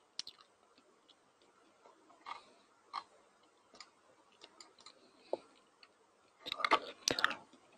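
Faint, scattered small clicks and ticks, with a louder flurry of clicks about six and a half seconds in.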